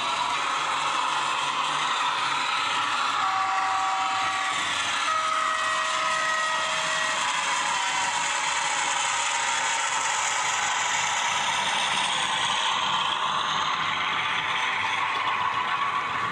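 Model Bachmann Class 42 Warship locomotive running with its train. The DCC sound decoder's diesel-hydraulic engine sound plays through a small speaker, mixed with the model's mechanism and wheels clattering over the track. A few brief steady tones sound in the middle.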